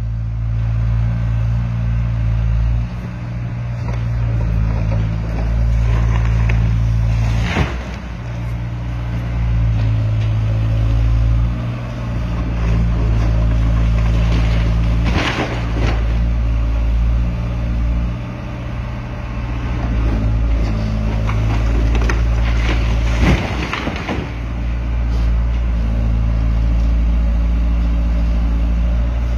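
Hydraulic excavator's diesel engine running steadily under load while a Trevi Benne MK 20 demolition multiprocessor on its arm crushes and pulls down a building's roof and walls. Several crashes of breaking masonry and falling rubble, loudest about 8, 15 and 23 seconds in.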